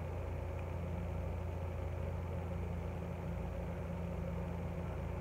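A steady low hum, even in level, with nothing else standing out.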